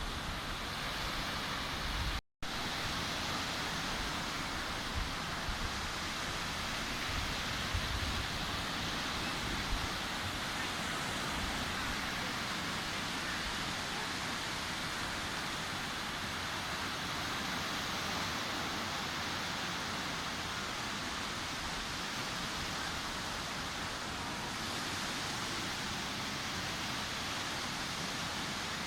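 Sea surf washing steadily onto a beach, a continuous even rush of breaking waves. The sound drops out completely for a split second about two seconds in.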